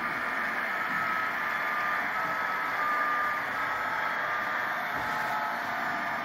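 Model steam locomotive running with a train of passenger coaches on a model railway: a steady running noise, with short faint tones recurring every second or so.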